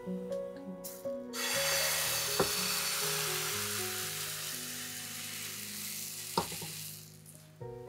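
Thin pancake batter sizzling as it is ladled into a hot greased frying pan; the hiss starts about a second in and dies away near the end. A couple of light clicks sound partway through, over soft background music.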